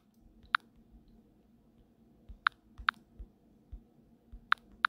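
About six short, sharp clicks of taps on a smartphone touchscreen as menu entries are picked, two in quick succession near the end, with faint soft thumps between them.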